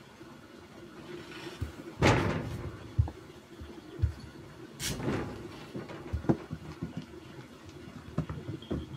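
Soft thumps and knocks on a wooden floor as cats get up and move and peaches are nudged and roll, with two louder rustling bursts about two and five seconds in.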